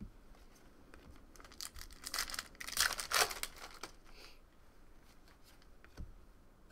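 Trading cards and their plastic wrapping rustling and crinkling as they are handled, with a run of scraping, tearing-like strokes from about a second and a half in, loudest around three seconds. A soft knock near the end.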